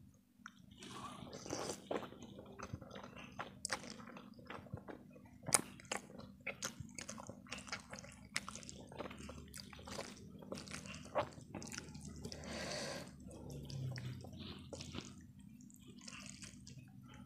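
Close-miked wet chewing and slurping of saucy instant noodles, with many sharp, sticky mouth clicks and one longer slurp past the middle.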